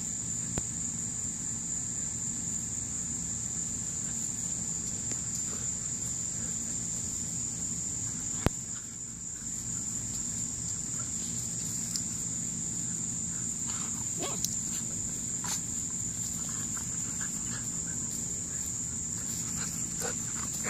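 Steady, high-pitched trilling chorus of insects, such as crickets, over a low rumble, with one sharp click about eight and a half seconds in.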